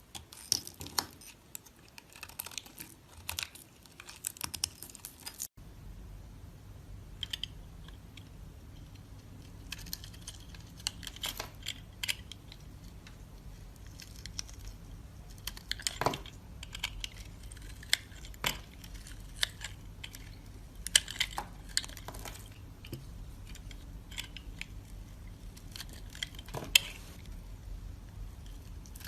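Knife cutting and carving soap: irregular crisp crunches, clicks and scrapes. From about five seconds in, a low steady hum runs underneath.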